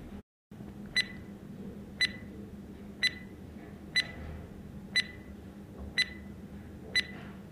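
Quiz countdown-timer sound effect: a short, high-pitched tick-beep once a second, seven times, marking the seconds running down, over a faint steady hum.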